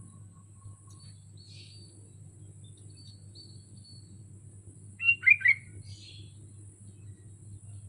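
Sooty-headed bulbul singing: a short, loud phrase of several quick notes about five seconds in, with fainter scattered notes before and just after it. A steady low hum runs underneath.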